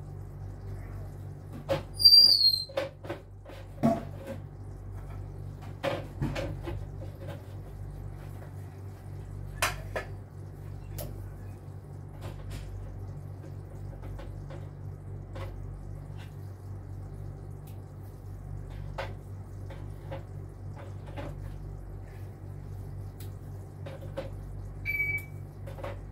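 Crackers being laid one by one into a pan by hand, with light clicks and taps of the dry crackers and the plate against the pan, over a steady low hum. A short high squeak about two seconds in is the loudest sound.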